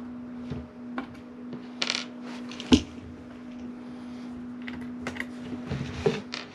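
Small screws being backed out of a transformer's metal top plate and handled: light clicks and metallic ticks, the sharpest click a little under three seconds in, over a steady low hum.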